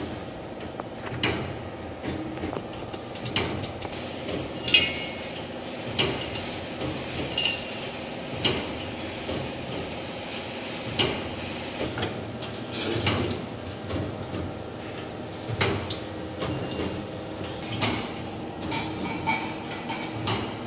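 Irregular metallic knocks and clinks as steel square-tube frame parts are handled and fitted together, over a steady factory hum.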